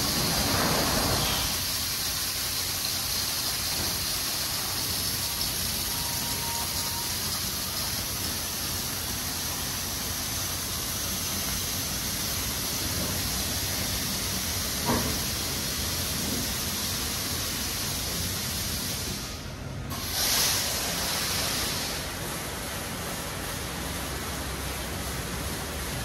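Automatic car wash spraying water onto a car: a steady hiss of water jets, with a short lull and then a louder surge about twenty seconds in.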